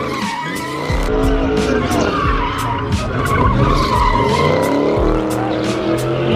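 A car engine revving up and down while its tyres squeal and skid, as in a burnout or donut.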